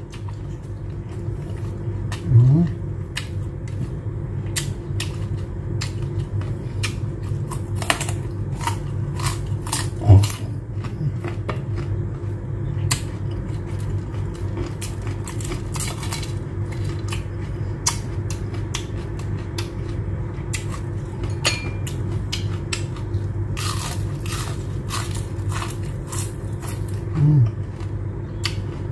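Close-up mukbang eating: chewing, lip smacks and bites of rice and fried shrimp eaten by hand, with fingers scraping rice on a plate, over a steady low background hum. Three times a brief, louder low voiced sound from the eater cuts in.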